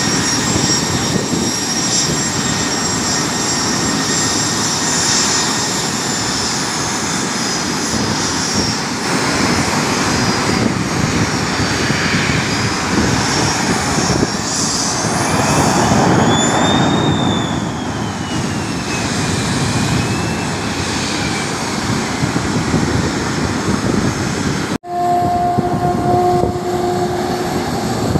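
Jet aircraft engines running: a steady rumble with a high turbine whine, and a whining tone that slides up and then down about halfway through. Near the end the sound cuts off abruptly and gives way to a steady two-note hum.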